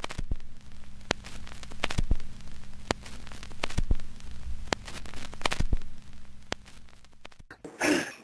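Crackling static over a steady low hum, with irregular sharp clicks every half second to second. Just before the end, a man's loud throat-clearing hack begins.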